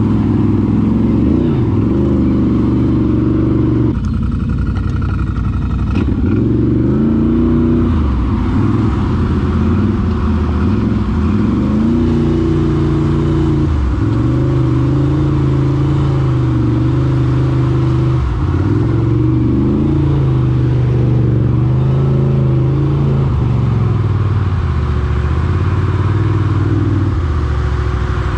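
ATV engine running continuously, its pitch rising and falling again and again as the throttle is opened and let off.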